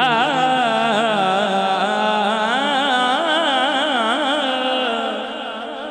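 A male naat reciter singing a Punjabi naat into a microphone, holding one long, wavering melismatic note with no words, trailing off near the end.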